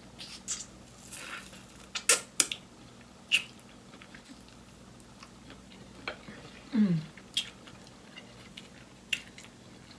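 Close-miked chewing of fried chicken: scattered crisp crunches and wet mouth clicks, with a short falling hum about seven seconds in.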